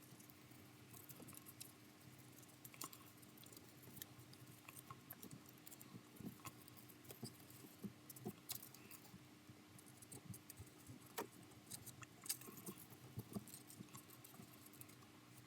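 Faint, scattered crinkles and small ticks of paper being creased by hand, a fingernail pressing and running along the folds.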